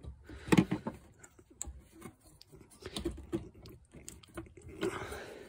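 A flathead screwdriver clicking and tapping against a plastic fuel-line quick-connect fitting on top of a fuel pump module as it is prodded and pried at. The clicks are scattered and irregular, the loudest cluster about half a second in.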